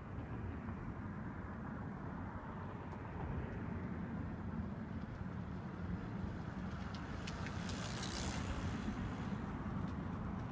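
Steady low rumble of road traffic, with a brighter hiss from about seven to nine and a half seconds in.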